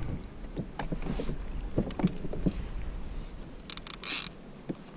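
Knocks and taps of gear being handled on a fishing kayak over a low rumble, with a short rasping hiss about four seconds in.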